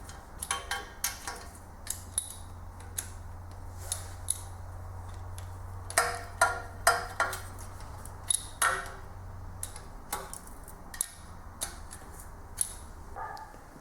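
Wrench ratchet clicking and metal tools clinking on a Toyota 2SZ engine as the exhaust manifold and EGR bolts are tightened to torque. The clicks come irregularly, some with a short metallic ring.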